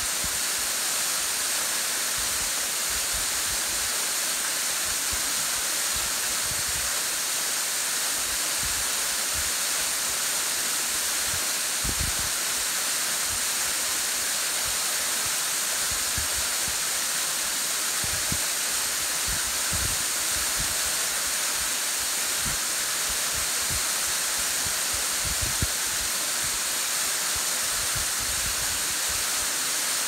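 Waterfall pouring down a rock face into a pool, a steady rushing hiss of falling water, with short low thumps of wind buffeting the microphone scattered throughout.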